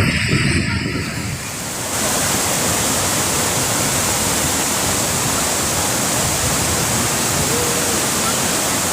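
Steady rushing roar of a heavy waterfall about 50 m high, cutting in abruptly about two seconds in as a different, lower sound fades out.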